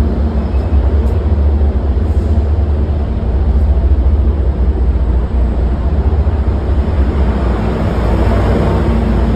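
Amtrak GE P42DC diesel locomotive's V16 engine running close by, a loud, steady low rumble.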